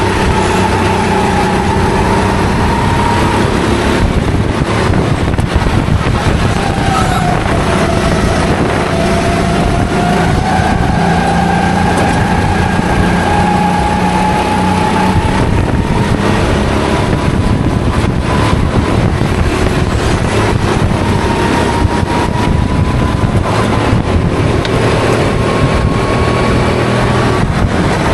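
Rental kart engine running under race load, heard onboard, its pitch dipping and climbing again and again as the revs change. A dense rush of noise lies under the engine note throughout.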